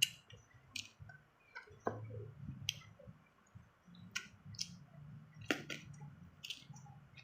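Someone chewing raw young cucumber and green mango: irregular sharp, crisp crunches and mouth clicks.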